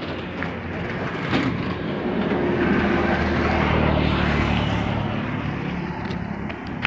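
Motorboat engine running with a steady low hum, swelling louder through the middle and easing off toward the end, over a rush of wind and water.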